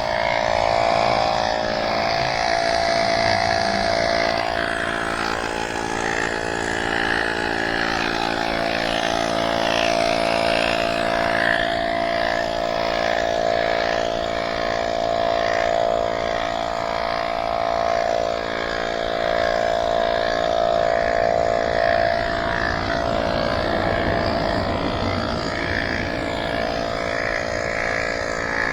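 Small electric air pump running steadily, inflating a bicycle tire.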